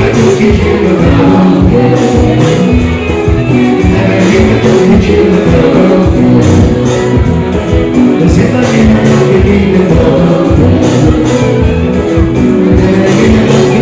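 Live band music with a singer, loud and steady, driven by a regular beat.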